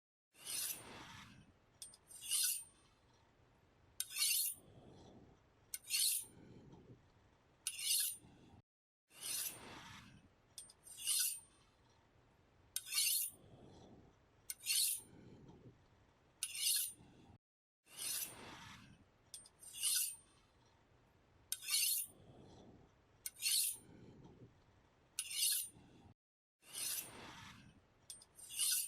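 A knife blade is drawn across a sharpener in repeated scraping strokes, about one every two seconds. Each stroke is a short, bright, hissy rasp, with a softer, lower swish between strokes.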